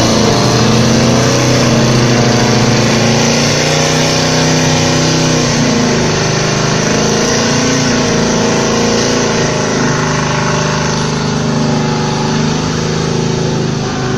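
Car burnout: the engine is held at high revs, its pitch wavering slightly, while the rear tyres spin and squeal in thick smoke.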